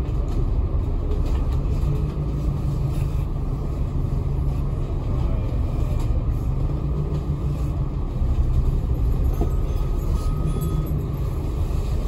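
Hong Kong KMB double-decker bus on the move, heard from inside: a steady engine hum over low road rumble, growing slightly louder about eight seconds in.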